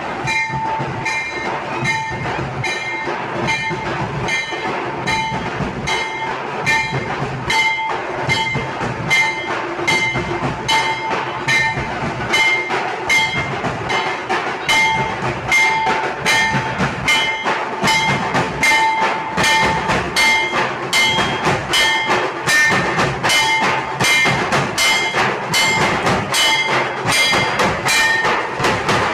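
A street band of large barrel drums (dhol) beaten with sticks in a steady, even beat of about two strokes a second, with a steady ringing tone over the drumming.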